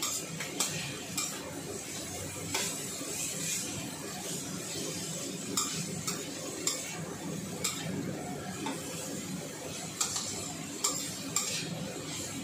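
Metal ladle scraping and clinking irregularly against a stainless steel wok as carrots and meat are stir-fried, over a steady sizzle of frying.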